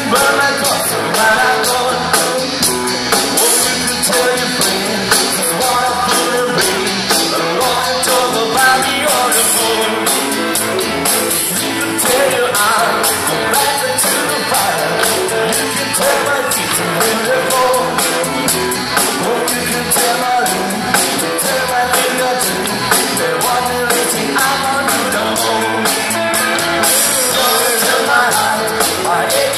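Live band music with a singer over a steady drum beat, played loud.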